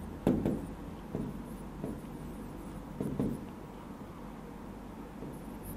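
A pen tapping and scratching on the glass of a touchscreen board as words are written. There are a few sharp taps roughly a second apart in the first three seconds, then it goes quieter.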